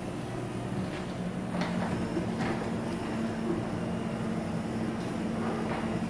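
LiftMaster 8500 wall-mount jackshaft opener closing a sectional garage door: a steady motor hum as the door rolls down its tracks, with a few faint clicks.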